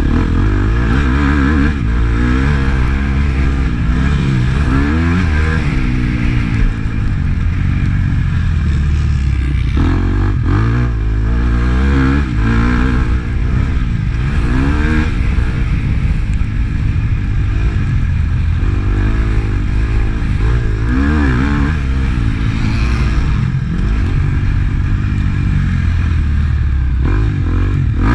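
Motocross bike's engine, heard from on board while racing a dirt track, revving up and dropping back again and again as the rider accelerates and backs off.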